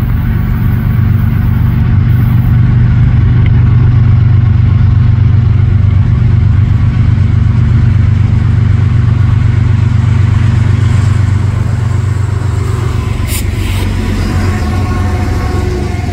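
Freight train's leading diesel locomotive approaching and passing close by: a loud, steady low engine drone, with a brief hiss and rail noise as it goes past near the end.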